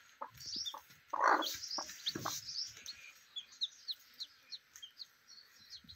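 Newly hatched chicks peeping, a steady run of short, high, falling chirps, with a couple of louder, lower clucks from the broody hen about a second in and again near two seconds.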